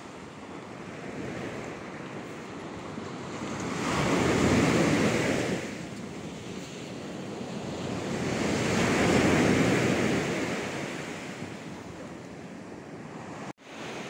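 Sea waves washing up a sandy beach, two swelling and falling away, the first about four seconds in and the second around nine seconds, over a steady surf background.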